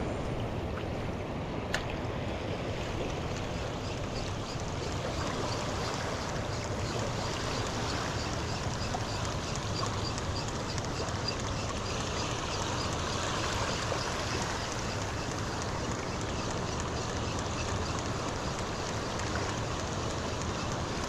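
Steady wash of water and wind noise on open water, as from a small boat afloat, with a faint regular ticking for several seconds in the middle.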